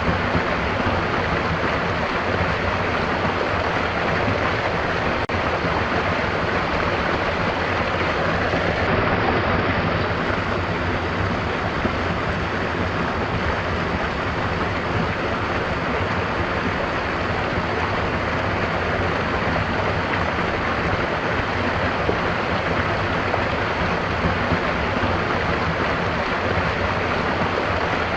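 Stream water running in a steady, even rush, with no birdsong standing out.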